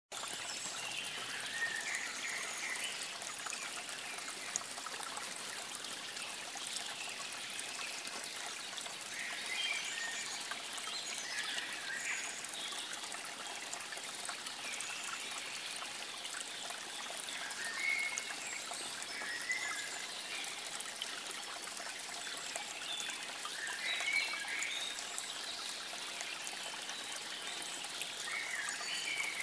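Steady trickle of running water, with short bird chirps now and then over it.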